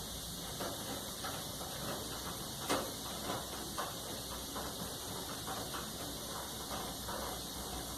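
Hand screwdriver turning out a screw from a clothes dryer's front panel: faint, irregular small clicks and scrapes, with one sharper click about three seconds in, over a steady hiss.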